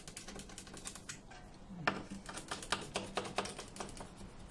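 Stanley knife blade cutting back the old polyurethane bonding seal along the edge of a glass pane: a quick run of crisp clicks and snicks. After a brief pause just over a second in, louder strokes follow at about three or four a second.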